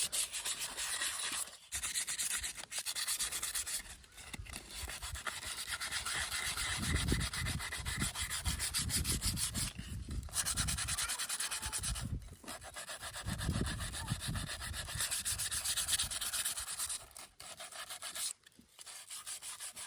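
Sandpaper rubbed by hand over a punctured pipe in quick back-and-forth strokes, roughening the surface so cement and fiberglass will bond. The rubbing stops briefly several times.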